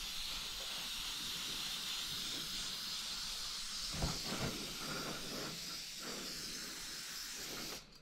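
Compressed-air spray gun hissing steadily as it sprays a coat of Cerakote, the air regulated down to about 17 PSI. The hiss cuts off sharply near the end as the trigger is released.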